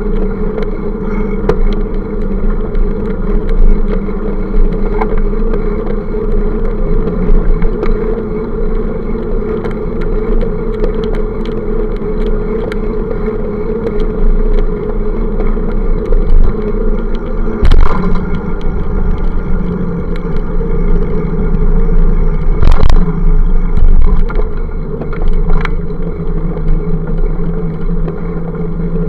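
Steady drone and rumble of a bicycle-mounted camera on the move: wind and road vibration on the microphone, mixed with road traffic. A few sharp knocks come through, the loudest about eighteen seconds in and again about twenty-three seconds in.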